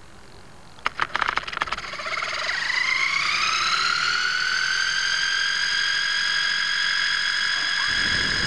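Small electric motor on an RC gyroplane spinning up: a few clicks, then a whine that rises in pitch and holds steady. Near the end a rushing noise starts as the propeller begins to turn.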